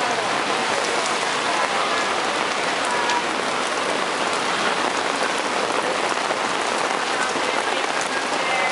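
Steady heavy rain, a dense even hiss of drops pattering close by on an umbrella just overhead and splashing on wet pavement.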